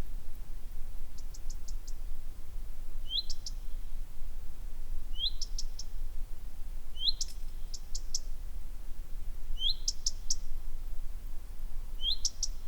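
A small bird repeating a short song phrase about every two seconds: a quick rising note followed by a rapid run of three or four high ticks. A steady low rumble runs underneath.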